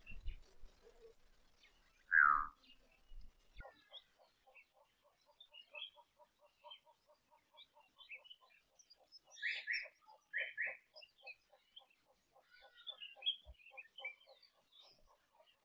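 Wild bush ambience of animal calls: one loud falling call about two seconds in, then a rapid, even pulsing call at about five pulses a second, with small birds chirping over it.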